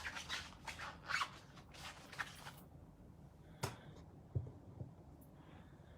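A rubber stamp rubbed quickly back and forth against a pad in scratchy strokes, about three or four a second, for the first two and a half seconds, then a few light clicks and a soft knock as it is handled.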